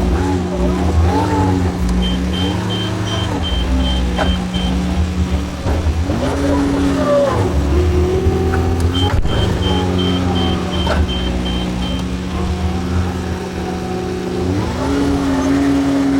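John Deere 410 backhoe loader's diesel engine running under load, its pitch repeatedly rising and falling as the hydraulics are worked. A faint, high, rapidly pulsing beep comes and goes twice.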